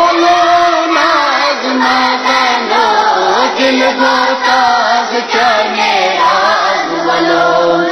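A group of children singing a Kashmiri naat together, drawing out long held notes that slide and waver between pitches.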